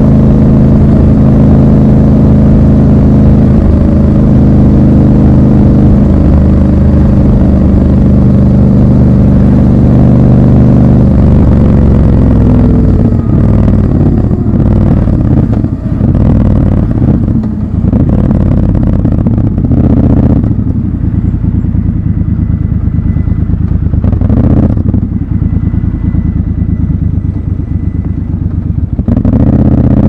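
Triumph Scrambler 1200 XC's 1200 cc parallel-twin engine running at steady cruising revs, then dropping in pitch as the bike slows, and running at low revs in traffic before getting louder again near the end.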